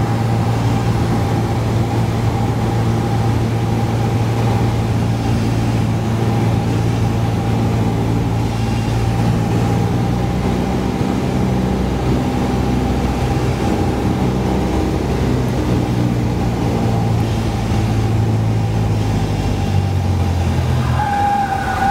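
Light single-engine plane's piston engine and propeller droning steadily, heard inside the cabin on final approach. Near the end the engine note drops as power comes back over the runway, and a steady high-pitched horn starts sounding, typical of the stall-warning horn in the landing flare.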